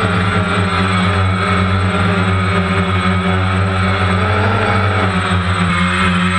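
DJI Phantom quadcopter's motors and propellers running with a steady, even hum, close to the microphone.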